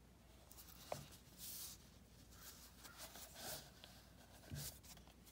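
Faint handling sounds of a metal SteelBook disc case being turned in the hands: a small click about a second in and a few brief, soft rubs and scrapes.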